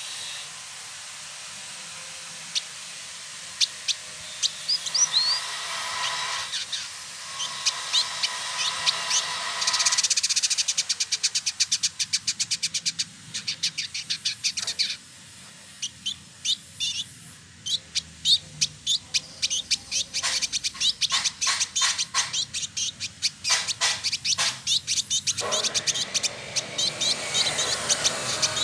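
Male village indigobird singing: bursts of rapid, sharp, high ticking notes and chatter, with a few short whistled notes between them.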